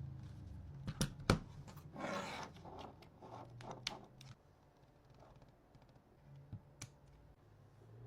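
A package being unpacked and handled by hand: several sharp clicks and knocks, with a brief scraping rustle about two seconds in.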